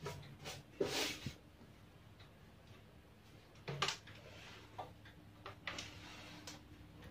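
Handling noise on an amplifier's metal cover: scattered knocks and brushing sounds, louder about a second in and again near four seconds, over a faint steady hum.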